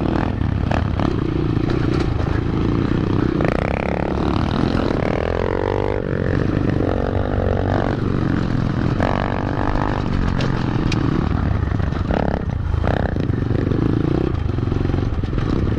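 Small single-cylinder four-stroke 125cc pit bike engines running as they are ridden, the nearest engine note rising and falling with the throttle every few seconds.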